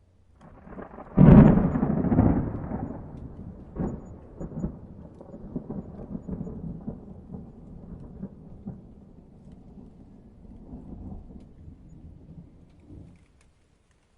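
A single peal of thunder: a sharp crack about a second in, then a crackling rumble that slowly fades away over about twelve seconds.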